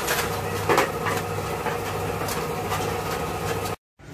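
Honda Future Neo GT's single-cylinder engine idling steadily with a thin steady whine and scattered light ticks. The mechanic puts the whine down to the cam chain tensioner. The sound cuts off abruptly near the end.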